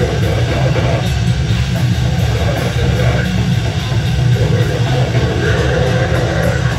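Live rock band playing loud: electric guitar, electric bass and drum kit together in a dense, steady wall of sound, heaviest in the low end.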